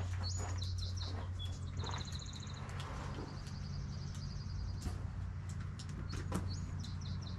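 Songbirds chirping in short, rapid trills over a steady low hum, with a few sharp clicks.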